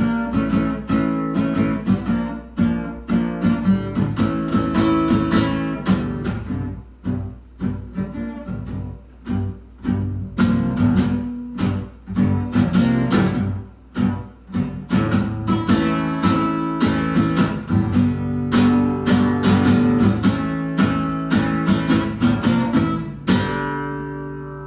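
Acoustic guitar strummed in a steady rhythm through a run of chords, with a last chord left to ring out and fade near the end.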